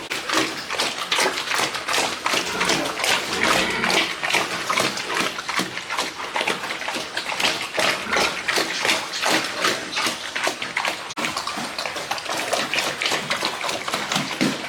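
Water splashing and sloshing in quick, irregular bursts, with a short break about eleven seconds in.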